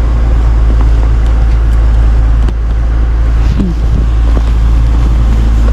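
Tow truck driving slowly through deep snow, heard from inside the cab: a steady, loud low rumble of engine and tyres.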